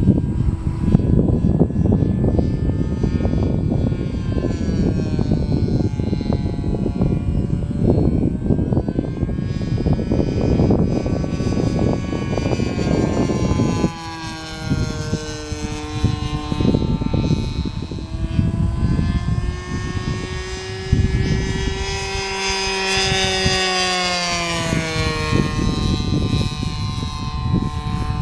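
Propeller-driven model Boeing P-26 Peashooter flying, its engine note rising and falling as it turns and passes. Wind buffets the microphone through the first half.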